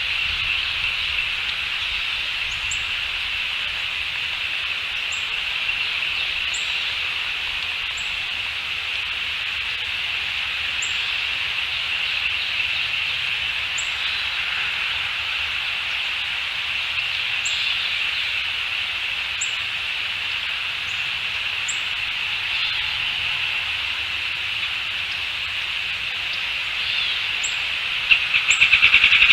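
Outdoor nature ambience: a steady high-pitched chorus, with a small bird giving short, high, thin falling calls every one to three seconds. Near the end a loud, rapid trill begins.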